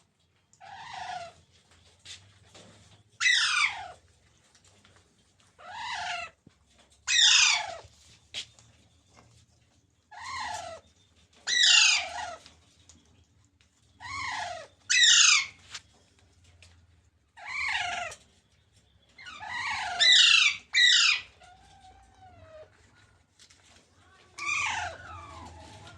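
Green parrot calling about a dozen times. Each call is short, loud and falls steeply in pitch, with a second or two between calls.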